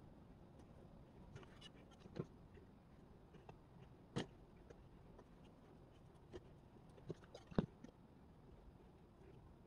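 Near-quiet room with a handful of light clicks and taps, the loudest about three-quarters of the way through, from a paintbrush and watercolour tin being handled on a wooden table.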